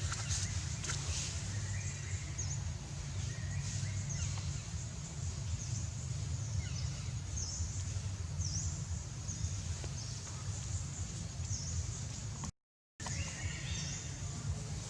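Outdoor ambience: a steady low rumble with short, high chirps every second or so. The sound cuts out for a moment near the end.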